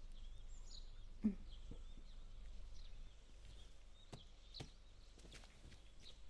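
Quiet outdoor ambience with faint bird chirps and a low steady rumble. A few soft knocks and footfalls on dirt ground come through, the loudest a low thump about a second in.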